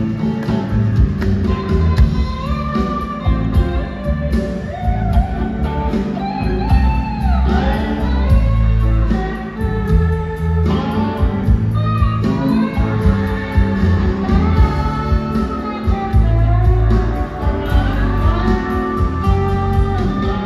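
Live electric band playing a blues number through the PA: electric guitars, bass and drums, with notes that slide and bend in pitch throughout.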